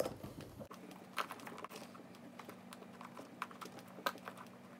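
Irregular light clicks and taps of a plastic RC crawler wheel rim being squeezed by hand into a foam-filled rubber tire, with a sharper knock about a second in and another near the end.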